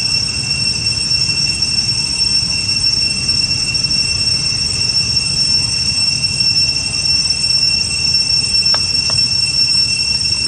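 Cicadas droning: a loud, steady, high-pitched whine that holds unchanged throughout.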